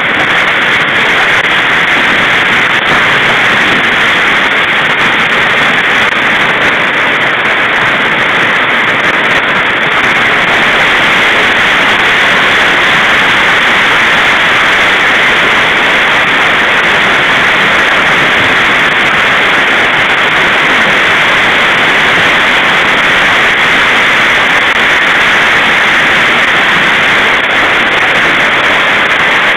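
Heavy hail and rain pelting down in a dense, steady, loud hiss.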